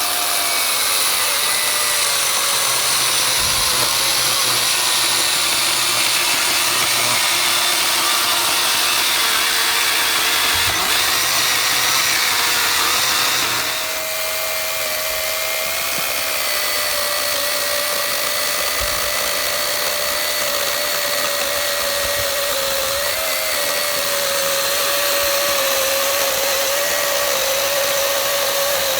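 Milwaukee M18 Fuel 2727-20 cordless chainsaw, fitted with a 20-inch Oregon .325-pitch bar and chain, running continuously while cutting into oak, with a steady electric-motor whine. The sound shifts about halfway through, and after that its pitch sinks slowly.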